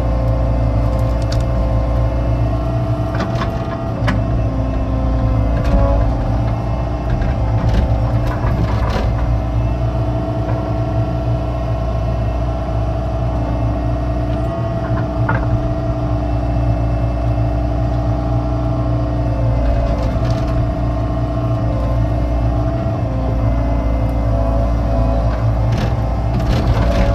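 Excavator's diesel engine running steadily, with a scattering of short knocks and clanks from the digging.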